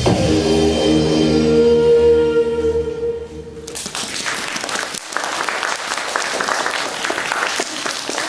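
Dance music ending on a long held chord, then audience applause breaking out about halfway through and carrying on steadily.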